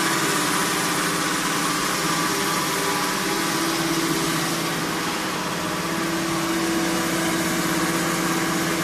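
Double-stage vacuum transformer oil purifier running: the electric motors driving its vacuum pump and booster pump give a steady hum over a broad hiss.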